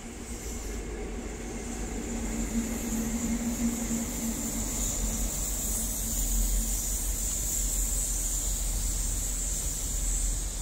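InterCity 125 High Speed Train passing: a steady hum from the diesel power car over the first several seconds, then a continuous rushing rumble of the coaches' wheels on the rails, growing louder over the first few seconds and holding steady.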